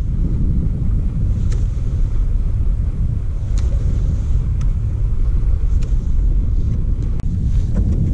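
Wind buffeting the microphone as a steady low rumble, with a few faint light clicks scattered through it.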